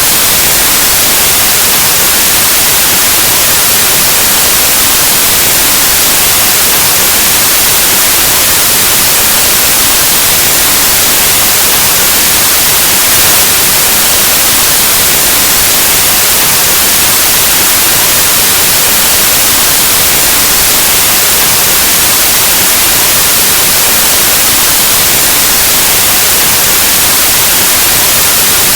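Steady, loud white noise: an unbroken, even static hiss with no tones or changes, like an untuned analog TV or radio.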